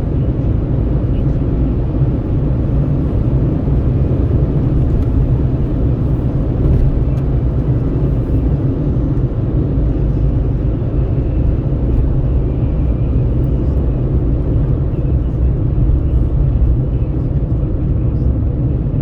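Steady low road and engine rumble of a vehicle driving along a highway, heard from inside it, with no distinct events.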